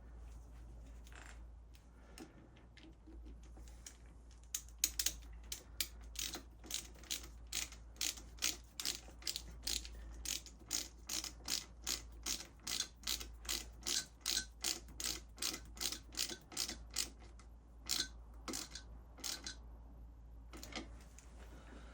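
Hand ratchet wrench clicking in quick, even strokes, about two or three a second, with a short pause and a few more strokes near the end.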